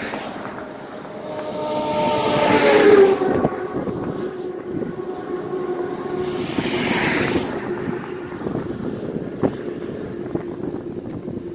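Road traffic with wind buffeting the microphone: a steady engine hum, with a louder vehicle going by about two to three seconds in and another gust of noise around seven seconds in.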